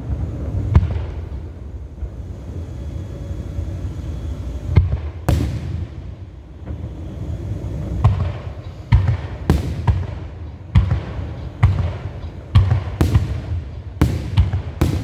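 Fireworks bursting over a low rumble: a few scattered bangs at first, then a quicker run of sharp bangs about one a second from about eight seconds in.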